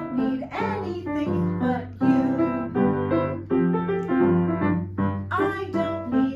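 Piano accompaniment music, a run of chords and notes changing about every half second.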